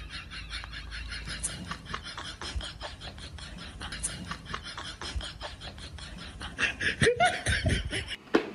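A person laughing off-camera in quick breathy pulses, with a few louder voiced bursts of laughter about seven seconds in.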